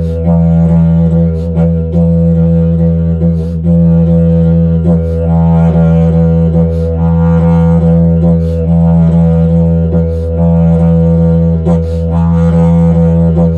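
Didgeridoo played as one unbroken low drone, its tone colour sweeping up and down as the mouth shapes it, with a quick sharp accent about every one and a half to two seconds.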